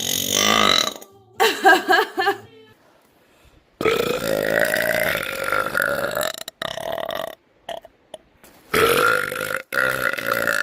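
A woman burping again and again, with short silent gaps between burps. The longest burp is drawn out for over two seconds, starting about four seconds in; the others are short.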